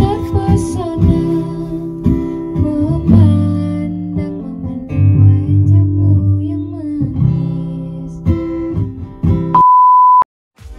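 A band playing in rehearsal, with guitar to the fore and some singing. About nine and a half seconds in the music cuts off and a single steady high beep sounds for about half a second, then stops abruptly.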